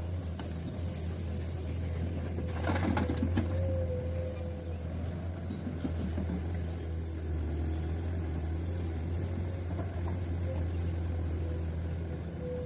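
Heavy diesel engine of an excavator working beside a dump truck, running steadily with a thin whine above the drone. About three seconds in comes a short burst of clattering knocks, the loudest moment, as from rock striking metal.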